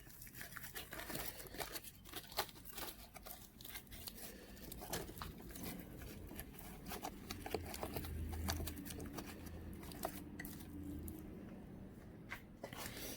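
Faint handling noises: scattered small clicks, taps and crinkling rustle of hands working around a motorcycle's battery compartment after the new battery's terminals are tightened, with a faint low hum in the middle.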